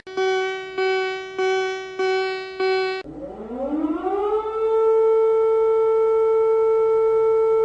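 Emergency warning siren: five short beeping tones about two-thirds of a second apart, then a wail that rises in pitch over a second or two and holds one steady, loud tone.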